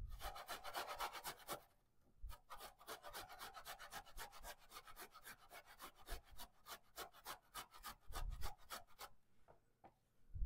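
Fresh ginger root being grated on a stainless steel box grater: quick rasping strokes, about four a second. There is a short pause about two seconds in and a few low thuds, and the strokes stop about a second before the end.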